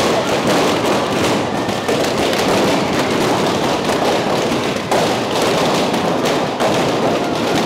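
Fireworks going off in rapid crackles and pops, over the steady noise of a large crowd.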